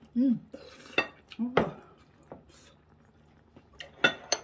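Metal spoon clinking against a small ceramic bowl while soup is eaten, with a couple of short mouth sounds early on. Near the end, a few sharp clinks of the bowl and utensils on the table.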